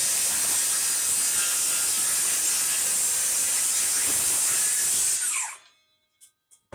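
Circular saw cutting across a plywood panel. It runs steadily, then about five seconds in the motor is let off and its pitch falls away as the blade spins down and stops.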